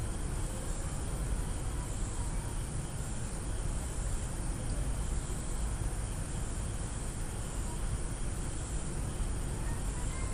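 Steady background noise from an open microphone: an even hiss with a low hum, and nothing else happening.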